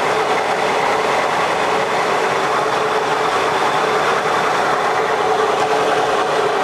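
Manual lathe running at 500 rpm under power feed, taking a 50 thou facing cut across the end of the spinning part: a steady machine drone with one constant tone and an even cutting hiss.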